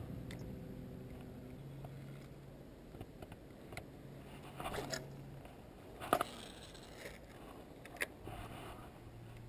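Faint clicks and knocks of a fishing rod and reel being handled, the loudest about six seconds in and another about eight seconds in, over a low steady hum.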